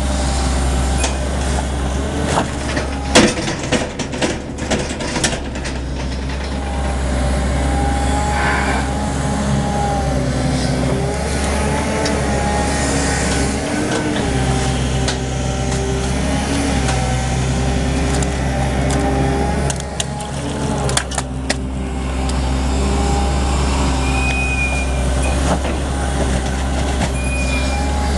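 Caterpillar 320D L long-reach excavator's diesel engine running under load, with a hydraulic whine that shifts in pitch as the boom works. There are bursts of clattering knocks a few seconds in and again about two-thirds of the way through.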